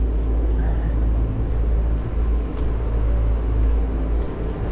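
Wind buffeting an action camera's microphone, a steady low rumble, with a faint mechanical hum underneath that fades out about three and a half seconds in.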